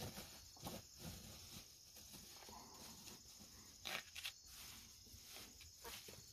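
Chickens pecking and scratching at their food, with a few short sharp taps, the loudest cluster about four seconds in, and an occasional faint cluck.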